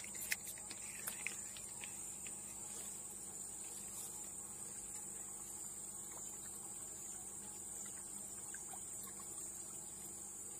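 Insects chirring steadily in the bankside vegetation, one constant high-pitched drone, with a few light clicks in the first couple of seconds.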